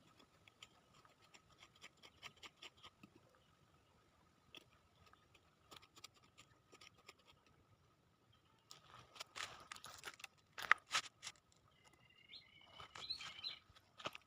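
Faint scraping and crackling as soil is worked by hand to plant a papaya sapling, louder and busier about nine seconds in. A few short bird chirps come near the end.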